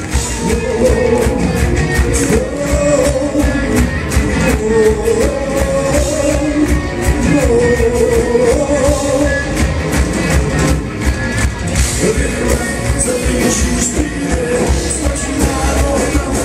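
Live metal band playing loud, with pounding drums, electric guitars and a sung melody, heard from within the audience.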